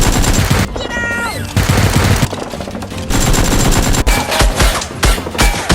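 Bursts of rapid automatic gunfire sound effects, three long volleys and then slower single shots with low thuds near the end. About a second in there is a brief falling tone between volleys.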